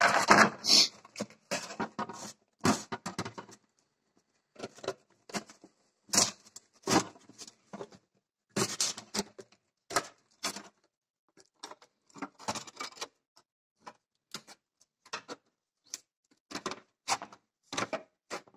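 Hand metal snips cutting through thin sheet steel, in a run of short, irregular cuts with brief pauses between them.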